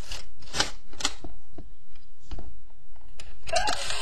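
Handling noise from a plastic Polaroid OneStep instant camera being picked up, turned and set down on a desk: irregular scrapes, rustles and clicks of the plastic body. A voice starts near the end.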